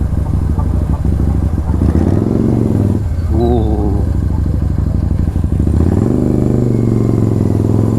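Motorcycle engine running steadily as the bike is ridden. About six seconds in, the engine note settles into a steadier, slightly higher pitch.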